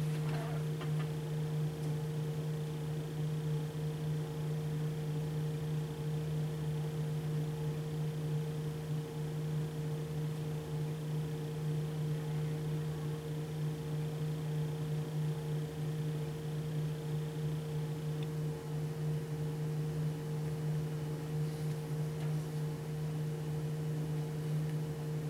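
A steady low machine hum, unchanging throughout, with a faint high whine that stops about three-quarters of the way through.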